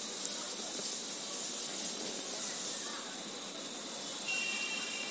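Steady hiss of background noise in the recording. A faint high steady tone joins it a little after four seconds in.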